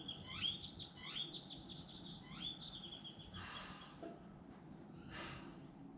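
A bird singing faintly: a few rising whistled notes, each sliding up into a short held note, in the first three seconds. Soft rustling sounds follow.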